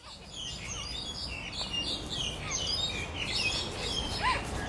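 Many small birds chirping and twittering together in a dense, continuous chorus of short high calls, over a low steady background rumble.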